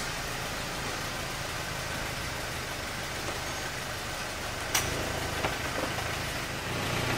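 2010 Mazda MX-5 power retractable hardtop closing: a steady motor hum as the roof and rear deck lid fold over, with a sharp clunk nearly five seconds in as the deck lid comes down.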